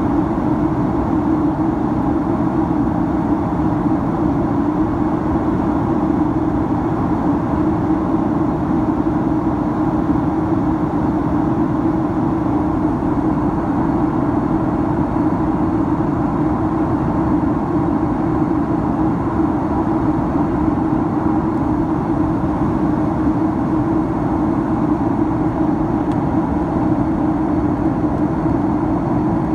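Boeing 767-300ER in flight heard from inside the cabin: a steady drone of engine and airflow noise with a constant hum running through it.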